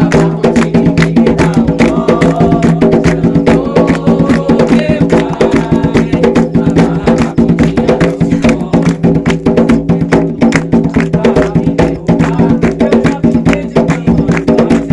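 Umbanda ritual drumming on atabaques: dense, fast hand strikes in an even rhythm with sharp, wood-like clicks. Steady low tones run underneath, and voices show faintly in places.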